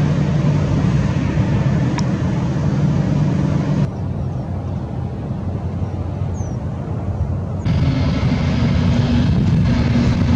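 Jet airliner engine noise in three clips joined by abrupt cuts. First a Boeing 767 landing, then a quieter, duller stretch as another twin-jet approaches, then louder engine noise with a steady hum from an airliner on the ground.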